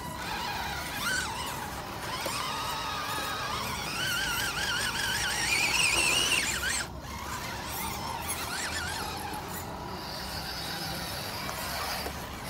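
RC scale crawler's electric motor and gearbox whining as the truck climbs rock, the pitch wavering and then rising with throttle before cutting off abruptly about seven seconds in; a fainter whine follows.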